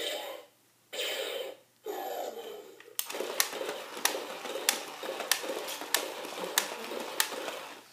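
Battery-powered Imaginext Mega Apatosaurus toy walking: its motor and gears whir, with a sharp click about every two-thirds of a second as the legs step. The walking begins after a few short bursts of sound broken by brief silences.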